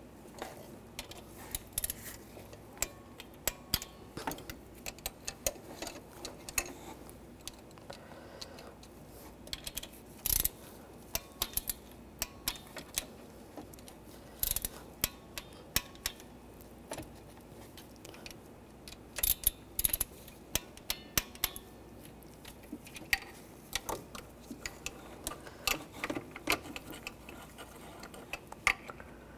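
Torque wrench ratcheting in short, irregular runs of sharp clicks as the exhaust manifold nuts are tightened to 71 inch-pounds.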